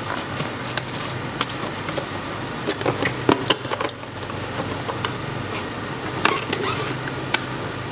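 Paperwork and a cardboard pistol box with its foam insert handled and shuffled, giving scattered light clicks, taps and rustles.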